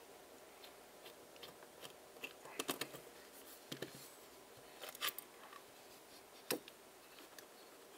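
Small screwdriver turning screws into a 3D-printed plastic part, then the plastic parts being handled and set down: faint scattered clicks and short scrapes.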